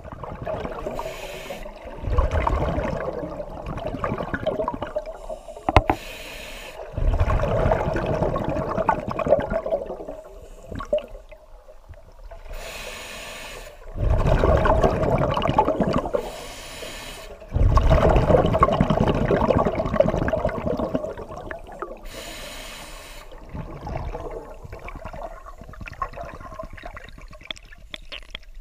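Scuba regulator breathing heard underwater: a short hiss on each inhalation, then a few seconds of rumbling, bubbling exhaust on each exhalation, about five breaths in all. The breathing is quieter over the last few seconds.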